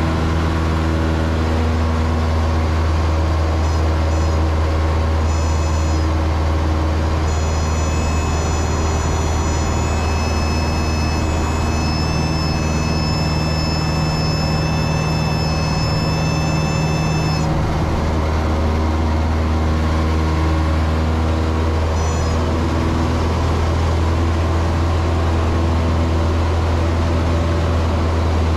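Cessna 162 Skycatcher's four-cylinder Continental O-200 engine and propeller droning steadily in cruise, heard from inside the cockpit as a loud, even low hum. A thin high steady tone sounds over it for about ten seconds in the middle.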